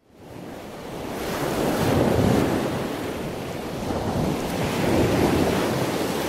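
Ocean surf: a wash of waves that fades in and swells twice, about two seconds in and again about five seconds in.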